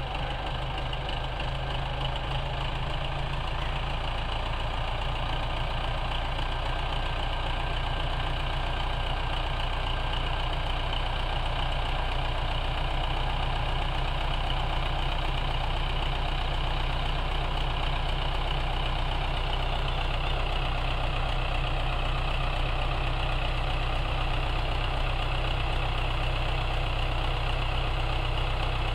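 Belarus 510 tractor's diesel engine running steadily, a little louder after the first few seconds, while its hydraulics tip a fully loaded soil trolley.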